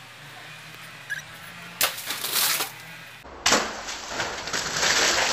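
A water balloon bursts against a brick wall about three and a half seconds in: a sudden smack, then about two seconds of splashing spray. A shorter noisy burst comes just before, about two seconds in.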